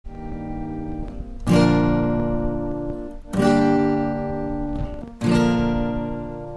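Background music: an acoustic guitar strumming chords, three strums about two seconds apart, each left to ring and fade.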